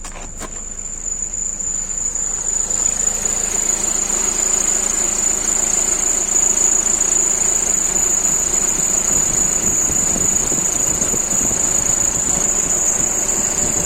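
Newly fitted air-conditioning compressor on an Audi A4 B6 switching on with a click, then squealing with a steady, high-pitched whistle over the running engine. The owner considers the new compressor defective and is returning it to the seller.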